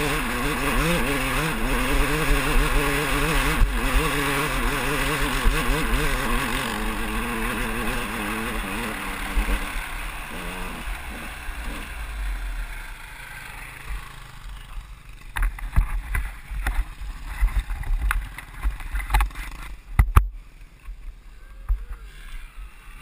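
A 2001 KTM 200EXC two-stroke dirt bike engine working hard up a climb, its revs wavering up and down. The engine sound fades away about ten seconds in. After that come low wind rumble on the helmet-camera microphone and a handful of sharp knocks.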